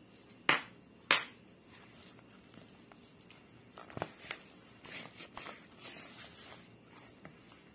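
Two sharp knocks about half a second and a second in, then soft scattered rustles, squelches and small clicks of bread dough being mixed by a plastic-gloved hand in a plastic bowl.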